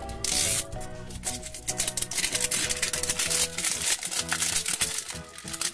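Background music, with the crinkling and tearing of a plastic wrapper being peeled off a toy package; a louder tear comes just after the start.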